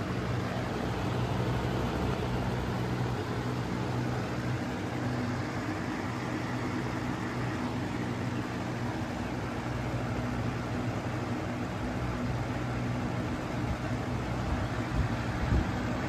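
Lasko Weather-Shield box-fan motor running the fan blade: a steady electric hum under the rush of moving air. A few low thumps come in near the end.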